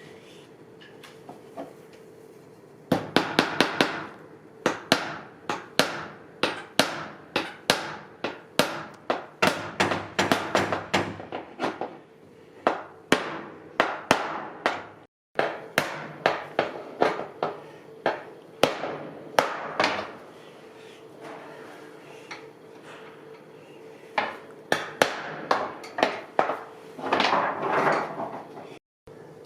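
Hammer blows struck in quick runs of roughly two a second, with pauses between the runs, during bodywork on a vintage tram car. A faint steady hum runs underneath.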